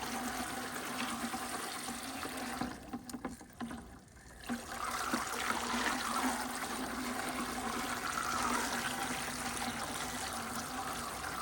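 Fishing reel being cranked to wind line on, the line's supply spool turning in a bucket of water with a steady trickling, splashing sound. The winding pauses briefly about three seconds in, then resumes.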